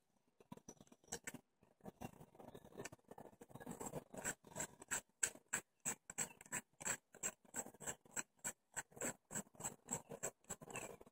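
Small, sharp metallic clicks repeated several times a second from the fire button of a Nemesis mechanical vape mod, whose switch spring has been replaced with magnets, being pressed over and over. The throw is stiff.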